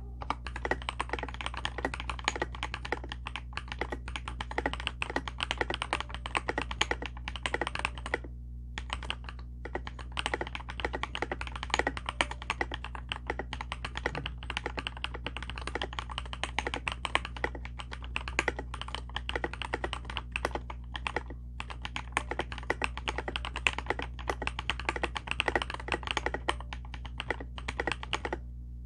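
Fast, continuous typing on a KBDfans KBD67 Lite 65% mechanical keyboard with lubed Durock POM linear switches and doubleshot ABS OEM-profile keycaps, the keystrokes coming in rapid clicks with a brief pause about eight seconds in. A steady low hum runs underneath.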